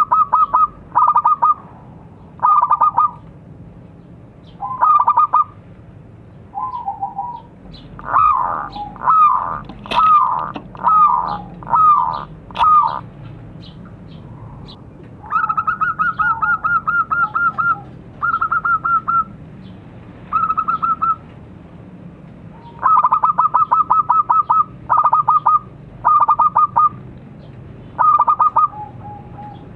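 Zebra dove (perkutut) cooing: short phrases of fast, rapidly repeated coo notes, over and over with brief pauses between them. In the middle the phrases give way to a run of separate, louder notes that rise and fall.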